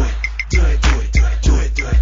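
Hip hop backing music with a steady heavy beat.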